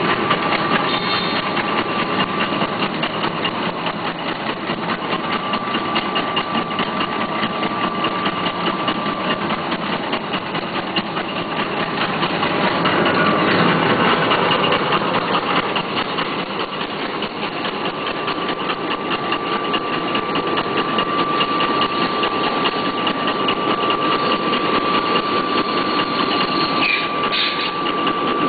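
Mini pocket-tissue (handkerchief) making machine running: a fast, steady mechanical clatter of its rollers and folding mechanism, with a constant high whine that drops out for a while around the middle.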